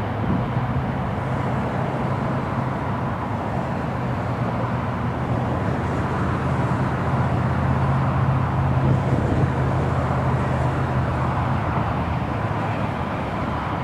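Steady low engine drone over a constant hiss of outdoor background noise; the drone swells slightly past the middle and drops away near the end.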